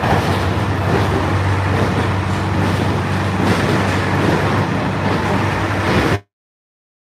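The JR Hokkaido Limited Express Ozora, a diesel express train, running through a tunnel as heard from the vestibule between cars: a steady roar of wheels on rails over a low engine drone. The sound cuts off abruptly about six seconds in.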